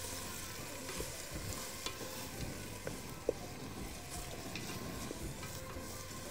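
Chopped yellow onion sizzling in oil in an aluminium pot, being browned, while a wooden spatula stirs it with small scrapes and taps against the pot. One sharper knock about three seconds in.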